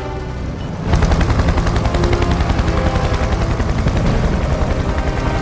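Sustained rapid machine-gun fire, starting about a second in and running on without a break, over dramatic film score.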